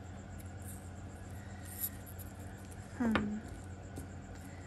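Costume jewelry being handled, with a few faint small clicks of beads and metal over a steady low hum, and a brief murmured hum of the voice about three seconds in.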